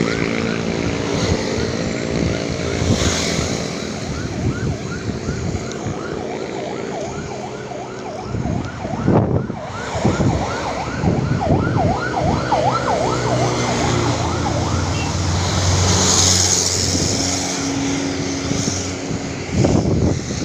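Siren yelping in fast repeated up-and-down sweeps, about two a second, stopping about two-thirds of the way through, over the noise of passing road vehicles.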